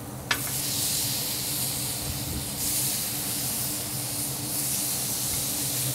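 Mahi mahi fillets sizzling on a hot ridged grill pan as they are flipped with a metal spatula: a short clack about a third of a second in, then a strong searing hiss that swells again about two and a half seconds in. A steady low hum runs underneath.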